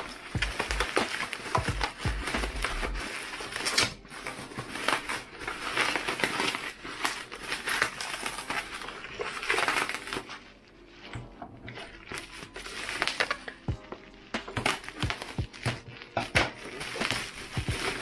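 Plastic bubble wrap crinkling and crackling in irregular bursts as it is handled and pulled off a boxy radio cassette player, with a lull about ten seconds in.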